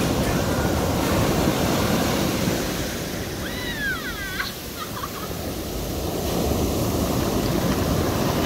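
Ocean surf breaking and washing up the sand, easing off midway and then building again. A brief high call with a few arching pitch swoops sounds about three and a half to four and a half seconds in.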